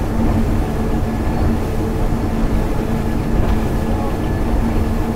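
Aquila 47 Molokai power catamaran's engines running near wide open at about 63 mph, heard from the helm as a loud, steady drone with a constant hum of unchanging pitch.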